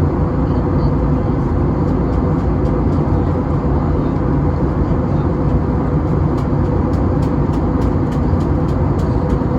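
Airbus A321neo cabin noise heard from a passenger seat: a steady roar of engines and airflow with a constant hum. A few faint light clicks come in the second half.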